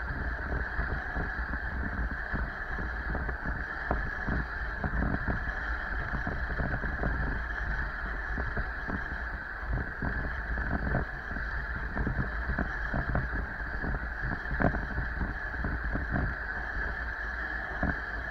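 Bicycle rattling over a rough, cracked and patched lane, with many small irregular knocks, over a steady rumble of wind on the camera microphone.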